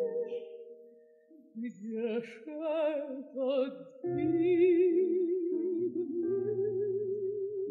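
Operatic mezzo-soprano singing a Russian waltz romance with grand piano accompaniment. The voice has a wide vibrato. After a brief hush about a second in, she sings a short phrase, then holds one long note from about four seconds in over piano chords.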